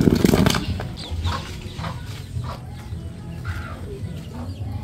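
A heavy stone is shifted and set down on sandy ground at the start, then a few scattered light knocks follow. Chickens cluck in the background.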